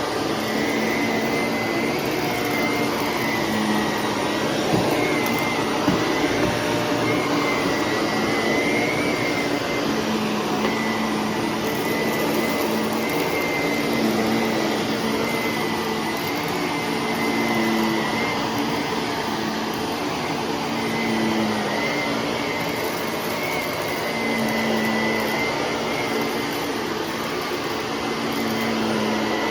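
Shark vacuum cleaner running steadily: a continuous motor whine whose pitch wavers slightly, over a lower hum.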